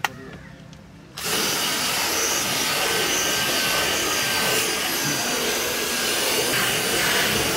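Cordless drill spinning a scrub brush pad against a car's fabric roof headliner: the motor starts suddenly about a second in and then runs steadily, with the brush rubbing on the fabric.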